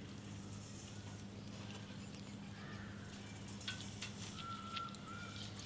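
Quiet outdoor background: a steady low hum with faint scattered clicks, and from about four seconds in a run of short rising-and-falling whistled notes repeating.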